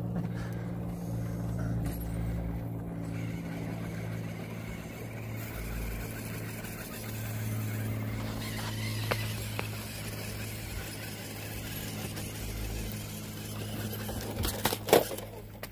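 Radio-controlled scale rock crawler's electric motor and geared drivetrain whirring steadily as the truck creeps up a rock face. A few sharp clicks and knocks come near the end.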